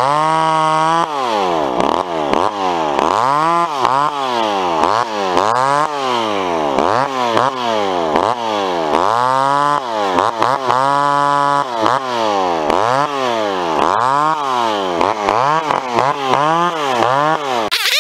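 Vintage McCulloch two-stroke chainsaw revved up and down over and over while limbing a log, cutting off the branch stubs one after another. It is held at full throttle for about a second near the start and twice around the middle.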